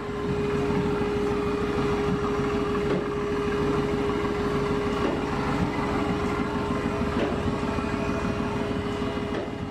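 Mercedes-AMG GT S's twin-turbo V8 idling steadily: a low rumble with a steady hum on top, the engine being warmed to temperature before its oil is drained.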